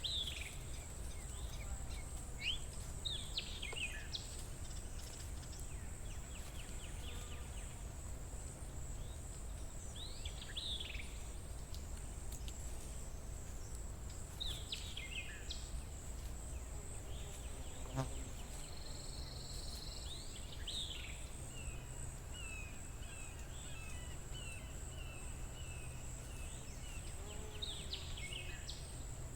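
Songbirds singing short, swooping phrases every few seconds, with a longer trill about two-thirds of the way through, over a continuous high-pitched insect drone and a low rumble.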